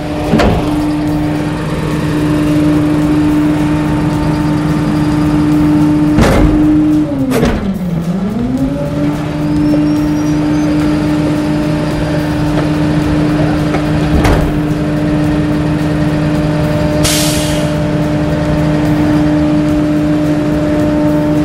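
Garbage truck's engine and hydraulics running with a steady hum. About eight seconds in, the pitch sags and then recovers. A few heavy clunks are heard, and there is a short hiss of air about seventeen seconds in.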